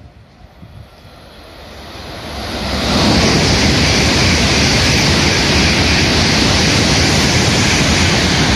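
N700 series Shinkansen train passing through a station at speed without stopping: its noise builds over the first three seconds as it approaches, then holds loud and steady as the long train streams past.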